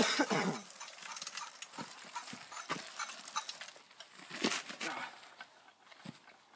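Scattered light knocks and rattles from a homemade chainsaw-engine scooter being wheeled and handled ready for starting. The engine is not yet running.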